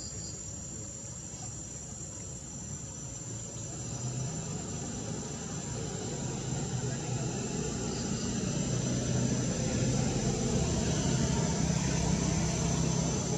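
Steady high-pitched insect chorus with a low, distant engine drone that grows louder through the second half.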